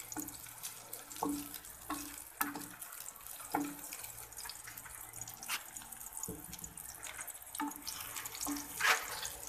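Sliced onion and garlic frying in a little oil in an aluminium frying pan, with a steady sizzle. A wooden spatula scrapes and knocks against the pan every second or two as the pieces are stirred.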